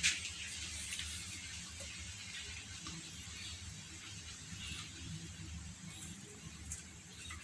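Low, steady background hiss and rumble with a few faint, short clicks or taps scattered through it.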